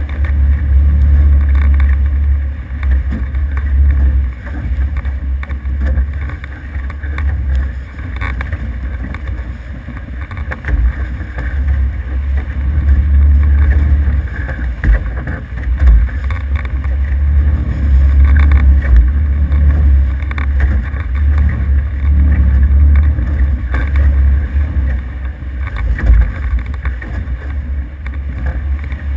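Wind buffeting the microphone aboard an F18 sailing catamaran under way: a loud low rumble that swells and eases over and over.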